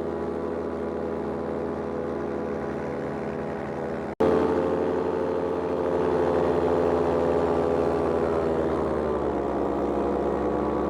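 Paramotor engine and propeller running steadily in flight, a droning tone with many overtones. About four seconds in, the sound cuts out for an instant and returns a little louder. Near nine seconds the pitch drops slightly.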